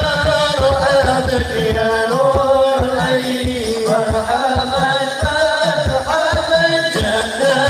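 Live Islamic devotional song (sholawat) over a loud sound system: male voices singing a winding Arabic melody, holding and sliding between notes, over amplified music with a low beat.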